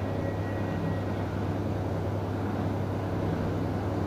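Steady low hum under a haze of background noise, unchanging throughout, with no ticks or other distinct events.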